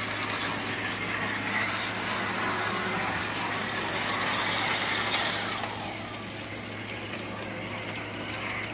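Model train locomotive's small electric motor and gearing whirring as it runs on the track. The running noise drops off about six seconds in.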